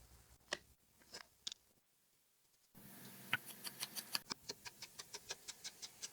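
Close-up collage crafting sounds: a few separate small clicks, then from about three seconds a quick run of sharp small clicks, about five a second, from paper and craft tools being handled.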